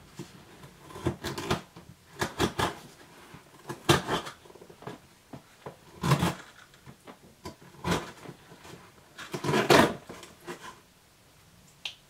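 Contents of a cardboard subscription box being handled and unpacked by hand: an irregular string of short rustles and knocks.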